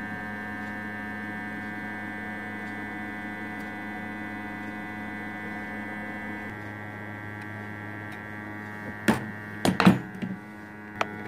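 Steady electrical hum, with a cluster of sharp knocks and clatters about nine to ten seconds in.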